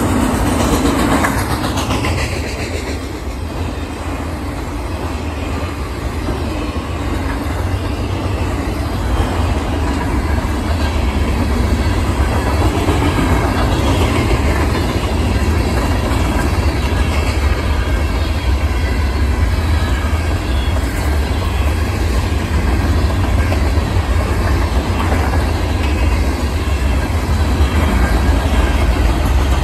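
Mixed freight train cars rolling past at speed: a steady, loud rumble of steel wheels on rail.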